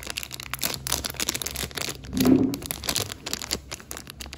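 Plastic candy wrapper crinkling and tearing as fingers pick at its sealed edge, in a quick run of sharp crackles. A brief, louder low sound comes about two seconds in.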